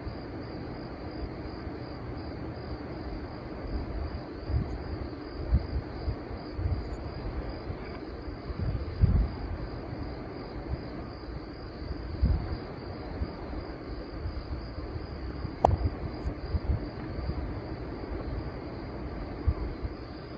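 Steady high insect chirring, typical of crickets, with irregular low thumps and a single sharp click about sixteen seconds in.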